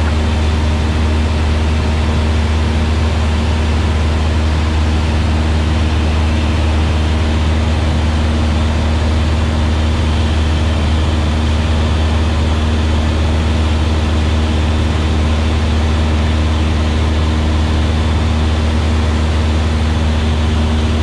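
Cessna 172S's four-cylinder Lycoming engine and propeller droning steadily at constant power, heard inside the cabin.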